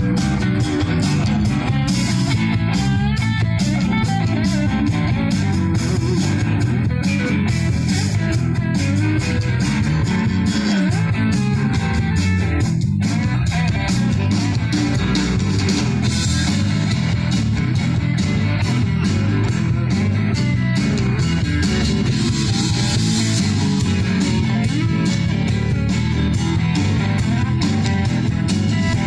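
Live rock band playing an instrumental passage: electric guitar over bass and drums, with a steady beat.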